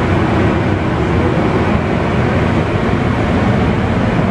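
Steady, loud mechanical drone of running machinery, with a faint steady hum in it.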